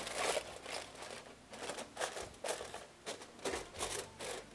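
Aluminium foil crinkling in irregular bursts as it is crimped by hand around the rim of a pan.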